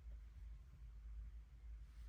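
Near silence: faint low room rumble with no distinct events.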